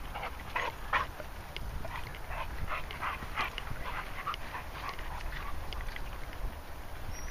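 Dogs yipping and whining in short, repeated cries while they play, over a steady low rumble.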